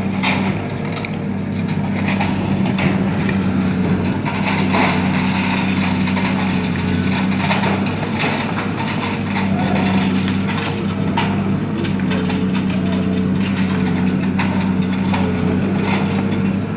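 Long-reach demolition excavator's diesel engine running steadily under load while its hydraulic crusher jaw bites into the concrete roof edge of an apartment block, with irregular cracks and crunches of breaking concrete.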